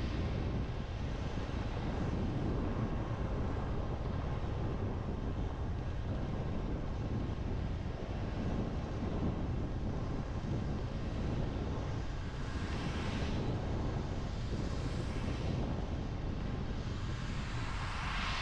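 A car driving on a wet road in heavy rain, with a steady low rumble of road and engine noise under a wash of tyre hiss. The hiss swells briefly about two-thirds through and rises again near the end.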